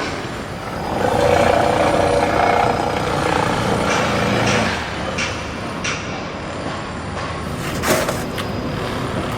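Heavy machinery running with a steady mechanical noise. It grows louder for a few seconds from about a second in, with scattered knocks and one sharp clank near the end.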